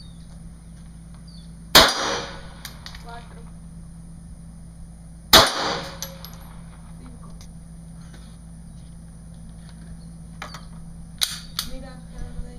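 Two shots from a Glock 25 .380 ACP pistol, about three and a half seconds apart, each with a short echo. Two lighter sharp clicks follow near the end.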